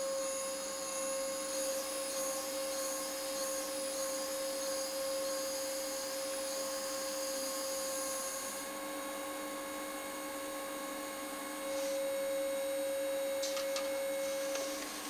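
Boschert Profi-28 hydraulic press brake running: a steady hum and whine from its hydraulic drive, which grows louder for about three seconds near the end, with a few light clicks.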